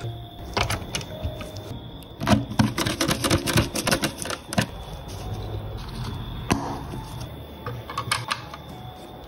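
Rapid clicking and tapping of plastic and metal parts of a 1/18 scale diecast model car being handled and screwed together with a small screwdriver. The clicks come thick and fast about two seconds in, then thin out to a few single clicks.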